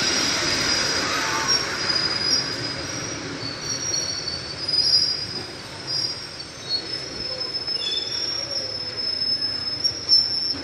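Local passenger train's coaches squealing under braking as they roll slowly into the station to stop: several thin, high squeals that shift in pitch, swelling louder about halfway through and again near the end.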